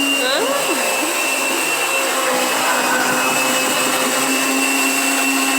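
Electric kitchen blender running steadily at full speed, blending a seasoning paste of garlic, onion and pepper, with a brief voice just after the start.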